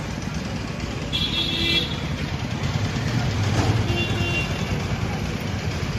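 Street traffic, a steady low rumble of passing vehicles, with a short high horn toot a little over a second in.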